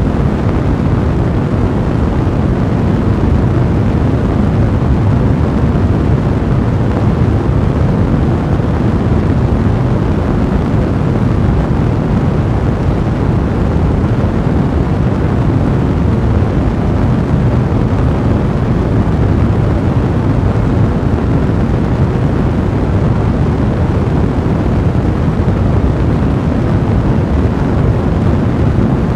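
A fire blazing: a steady, low rushing noise of burning flames, even in level throughout.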